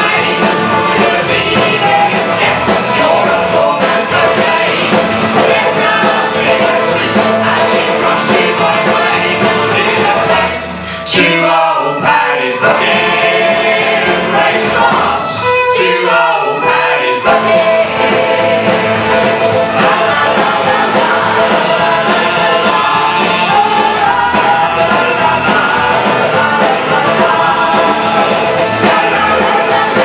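Live folk band (banjo, acoustic guitars, upright bass and drums) playing a song with a steady beat while several voices sing together. About eleven seconds in, and again around sixteen seconds, the instruments stop briefly and only the voices carry on before the band comes back in.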